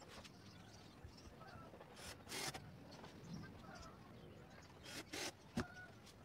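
Cordless drill driving screws into a plywood box, heard as two short rasping bursts of about half a second each, with a sharp click just after the second.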